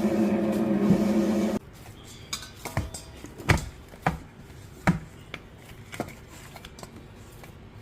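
Geepas wet grinder's electric motor running with a steady hum while kneading dough, then cut off abruptly about a second and a half in. After it stops come scattered knocks and clicks, a few of them sharper and louder, at a much lower level.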